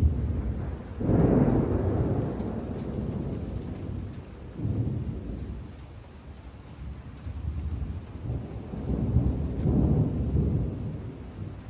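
Rolling thunder rumbling in several low waves: the loudest about a second in, a smaller one near five seconds, and a longer one near the end.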